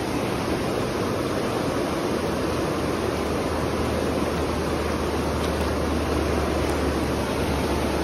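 Swollen, fast-flowing river rushing over stones, a steady even rush of water, with a low rumble underneath that grows a little stronger about halfway through.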